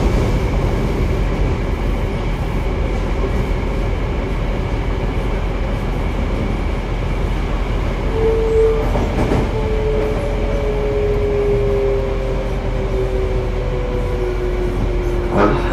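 Toei 5300 series subway car with Mitsubishi GTO-VVVF traction, heard from inside the car while running: a steady rolling rumble of wheels on rail. About eight seconds in, a whine sets in and slowly falls in pitch.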